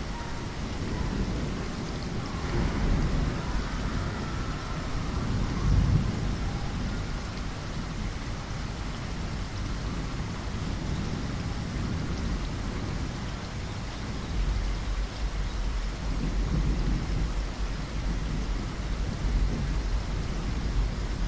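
Steady rain with low rolling thunder: the rumble swells a few seconds in, peaks about six seconds in, and builds again past the middle.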